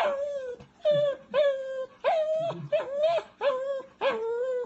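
Small dog whining and crying in a string of about seven short cries, each flicking up and then held briefly at one pitch: insistent attention-seeking "talking" at her owners because she wants them to come to bed.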